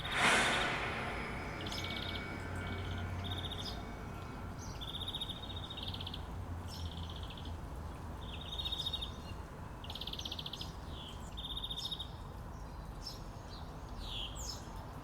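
Birds chirping in short, repeated trills. Right at the start, a sudden rush of noise is the loudest thing and fades over about two seconds.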